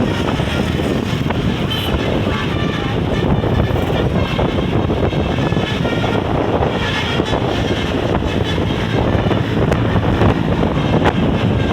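Bus engines running amid steady traffic noise, with wind buffeting the microphone.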